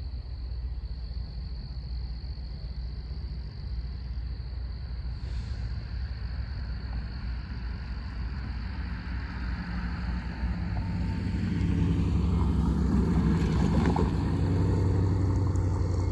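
Diesel locomotive at the head of a freight train approaching, a low engine rumble with a steady hum that grows louder over the last few seconds.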